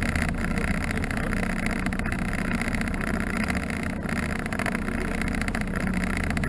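Small homemade boat's motor running steadily with the boat under way at a constant speed.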